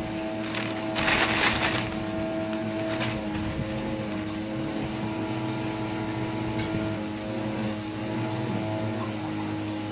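Electric pet hair clippers running with a steady hum, with a brief louder rustle about a second in.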